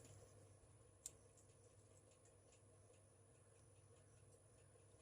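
Near silence, with one faint click about a second in and a few fainter ticks after it.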